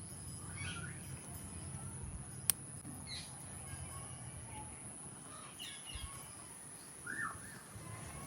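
Indian ringneck parakeet giving short, scattered chirps and squawks a couple of seconds apart, the strongest call near the end. A single sharp click about two and a half seconds in, with a faint steady high-pitched tone underneath.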